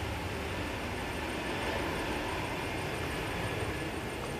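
Jet engines of a Boeing 737-800 airliner (CFM56-7B turbofans) rolling down the runway after landing: a steady, even jet noise with a low rumble underneath.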